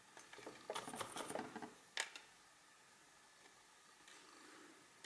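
Small circuit boards handled on a wooden workbench: a short run of light scraping and clicking, ending in one sharp click about two seconds in.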